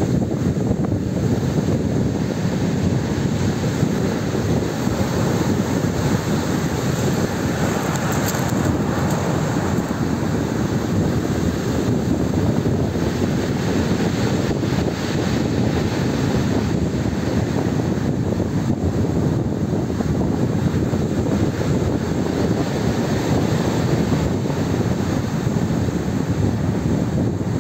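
Storm surf on the Black Sea: big waves breaking and washing ashore, with strong wind rumbling on the microphone.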